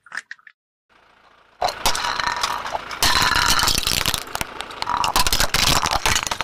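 Car tyre rolling over and crushing brittle objects: dense crackling and snapping that starts about a second and a half in and keeps going.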